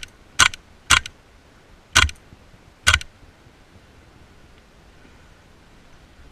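Airsoft gun fired in single shots, sharp cracks close to the microphone: the first few about half a second apart, then two more about a second apart, stopping about three seconds in.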